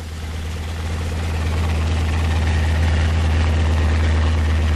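Engine drone of an M4 Sherman tank dozer, a steady low rumble that swells over the first second and a half and then holds level.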